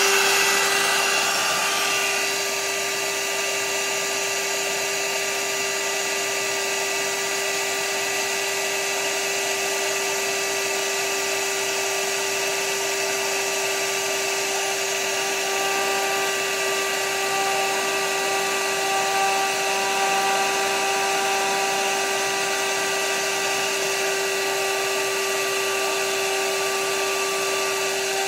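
Handheld hot-air blower running steadily with a constant whine, heating a fireplace insert's fan thermostat to make its fans kick on. A little louder for the first couple of seconds, then even.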